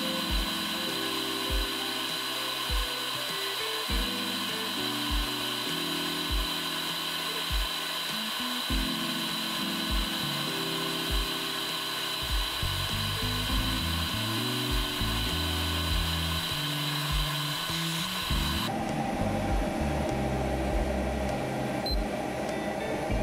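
Background music with a slow, steady beat, over the steady whine and hiss of a running fluid-bed granulator-dryer. The high whine and hiss cut off suddenly near the end, leaving a lower hum under the music.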